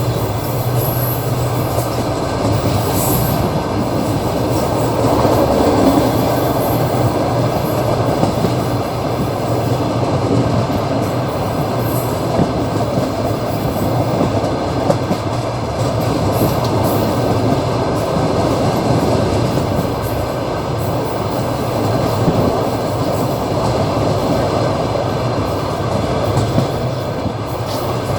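Passenger train running along the track, heard from inside the carriage: a steady rolling rumble of wheels on rails with occasional light knocks.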